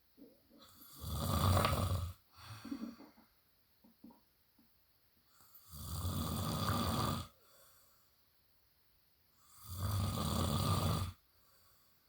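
A man snoring in his sleep: three long snores, each about a second and a half, coming about every four seconds.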